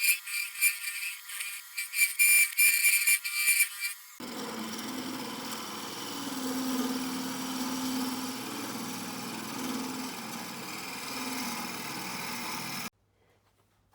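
Music with jingling percussion, ending abruptly about four seconds in, replaced by a steady hum with a wavering low tone that runs for about nine seconds and then cuts off suddenly.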